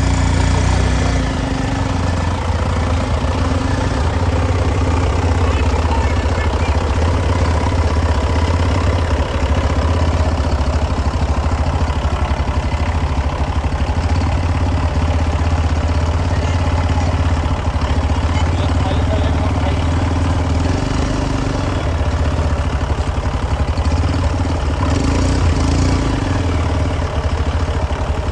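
Heavy diesel engine running steadily with a low hum, briefly picking up twice in the last third.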